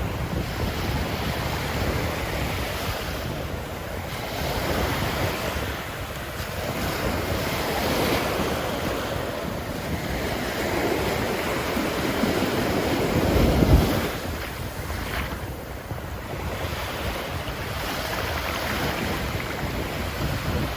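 Ocean surf breaking and washing up on a sandy beach in continuous swells, with wind rumbling on the microphone. The loudest moment is a deep rush about two-thirds of the way through.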